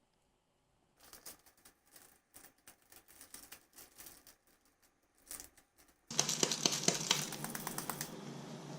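Kitchen cooking sounds: a run of light, irregular clicks and taps, then from about six seconds in a louder, dense crackling hiss with pops that continues on.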